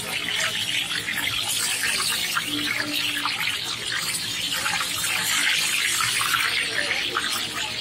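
Chicken pieces deep-frying in a large wok of hot oil: a steady, dense sizzle full of fine crackles.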